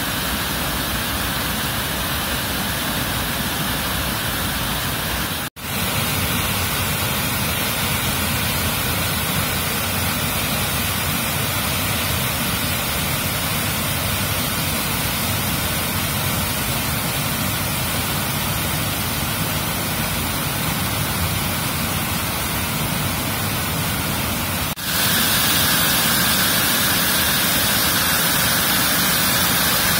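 Steady rush of a stream and small cascades pouring over boulders, broken off for an instant about five seconds in and a little louder for the last few seconds.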